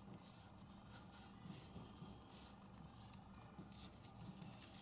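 Faint rustling and crinkling of a sheet of origami paper being folded and creased by hand, with small irregular taps and scrapes of fingers on the paper.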